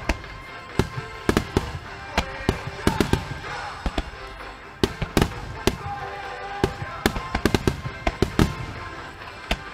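Aerial firework shells bursting in quick, irregular succession: a dense run of sharp bangs, several close together, throughout.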